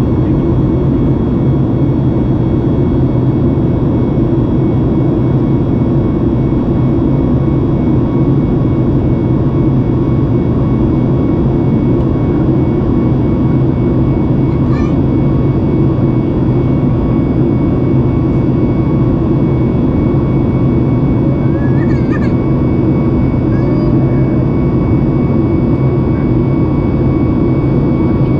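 Steady in-flight cabin noise of a Boeing 737 MAX 8, its CFM LEAP-1B turbofans and the airflow making an even roar with a steady tone on top. A few faint, brief high squeaks come through about halfway in and again later.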